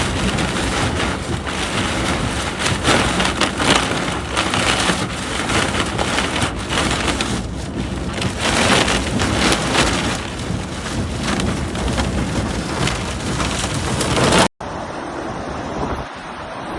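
Heavy rain pouring down hard, a dense steady rushing full of fine patter. Near the end it cuts abruptly to a duller rushing sound.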